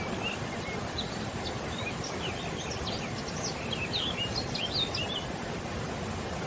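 Small birds chirping in many quick, short calls over a steady, even rushing noise, the chirps thickest through the middle of the stretch.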